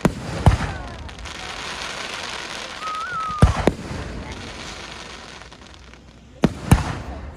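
Consumer fireworks going off: sharp bangs about half a second in, two close together in the middle and two more near the end, over a continuous hissing crackle.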